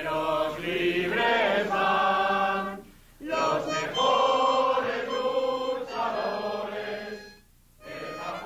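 Background music with singing voices, the phrases breaking off briefly about three seconds in and again near the end.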